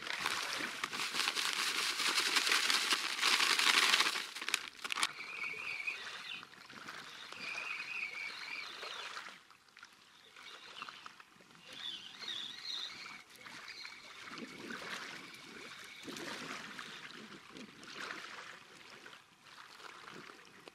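Dry feeder groundbait poured out of a plastic bag into a bucket, a hissing pour that stops about four seconds in. Afterwards, softer sounds with a bird twittering in short warbling phrases.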